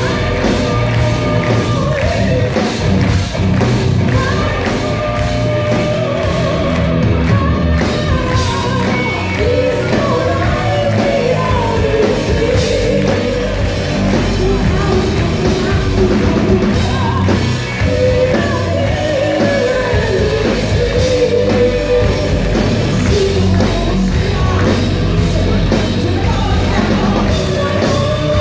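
Live rock band playing at full volume, a female lead singer carrying the melody over keyboards and electric guitar.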